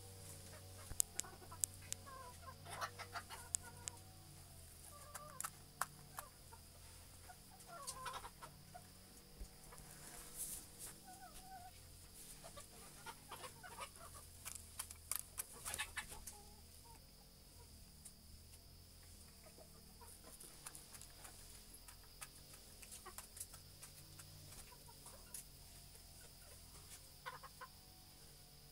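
Rooster clucking in short calls now and then while it is handled, with scattered clicks and rustles, most of them in the first half.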